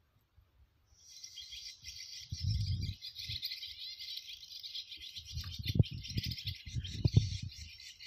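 Recorded swallow roosting calls played through a small twin-tweeter bird-lure loudspeaker, switched on about a second in: a dense, high, continuous twittering chatter. Low thumps from the gear being handled come and go under it, loudest in the last third.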